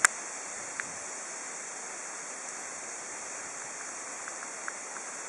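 Quiet outdoor ambience at a calm lake shore: a steady high-pitched hiss, with a sharp click right at the start and a fainter tick a little under a second in.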